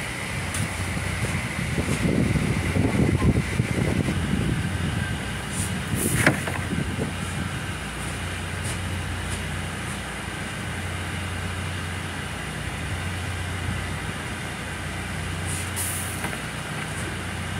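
Steady low hum of idling machinery, like a diesel engine running. There is a louder rumble two to four seconds in and a sharp knock about six seconds in.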